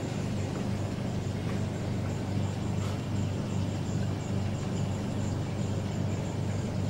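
Aquarium pump running: a steady low hum under a constant hiss of moving water.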